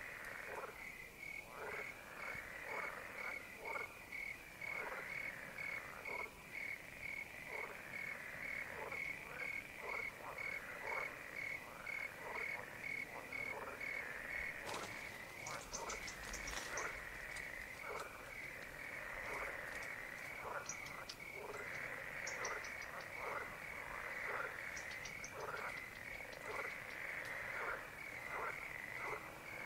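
Chorus of pond frogs, many short calls each dropping in pitch, overlapping one another, over a steady, rapidly pulsing high trill. Scattered high chirps join from about halfway through.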